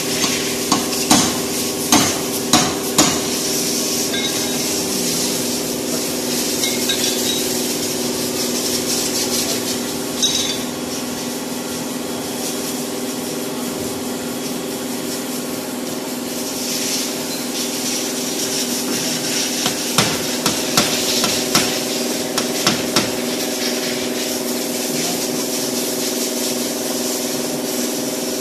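Sharp taps of a dent-repair tool on a car's front body panel: a quick run of about five in the first few seconds and another run about twenty seconds in, over a steady hum and hiss.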